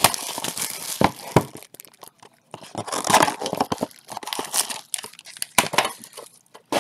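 Plastic shrink-wrap being torn and crumpled off a sealed Bowman Chrome HTA baseball card box, then the cardboard box opened and its foil-wrapped pack pulled out, with irregular crinkling and rustling and a few sharp taps.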